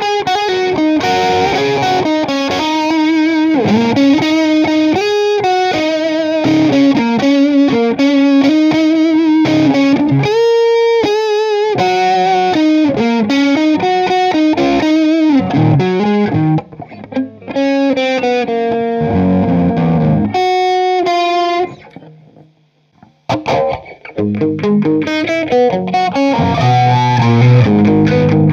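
Overdriven electric guitar from a Les Paul-style replica through a Marshall Silver Jubilee 2525H amp, playing a single-note lead with string bends and vibrato. The playing stops for a moment about three-quarters of the way through, then picks up again lower on the neck.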